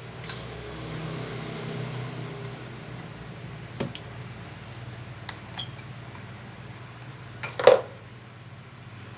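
Light clicks of small tools and phone parts being handled: single clicks about four seconds in and twice around five and a half seconds, then a louder tap near the end. A steady low hum runs underneath.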